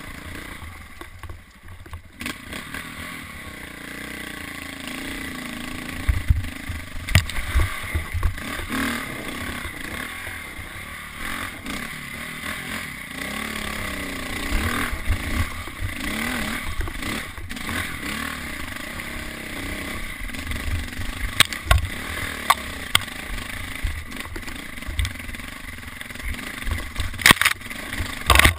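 KTM 400 dirt bike engine running under changing throttle, its revs rising and falling as it climbs a rocky trail. Sharp knocks and clatter from the bike striking rocks and brush come through at intervals, loudest near the end.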